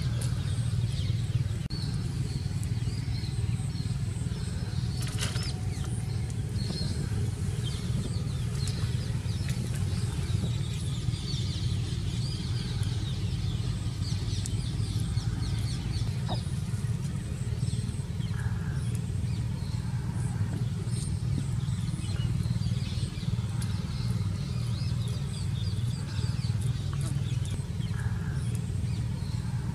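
Steady low background rumble with faint, scattered high chirps over it.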